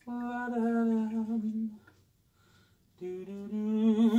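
A man humming two long held notes with a pause of about a second between them, the second a little lower in pitch.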